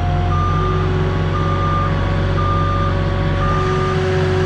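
Moffett truck-mounted forklift running with its backup alarm beeping about once a second, the sign that it is in reverse, over the steady drone of its engine.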